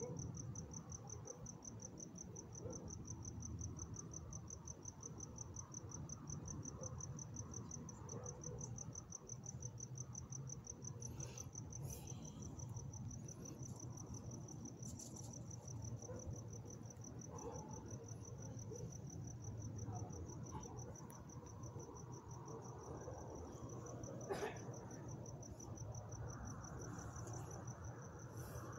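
Crickets chirping at night: a steady, evenly pulsing high-pitched chirp that keeps going without a break, over a low background rumble.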